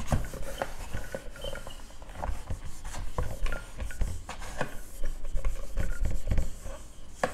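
Whiteboard eraser being rubbed back and forth across a whiteboard, a quick series of scratchy wiping strokes with small knocks as it is pressed and lifted.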